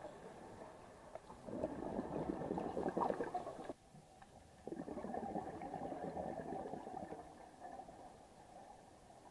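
A scuba diver's exhaled bubbles from the regulator, heard underwater through a camera housing: two bursts of bubbling about two seconds each, the first cutting off suddenly, the second fading, over a low steady hiss.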